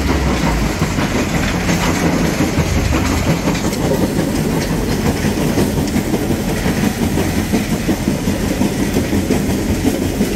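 Iveco T-Way truck's diesel engine pulling a heavy tipper semi-trailer under load, mixed with steady rough rattling and rumbling noise.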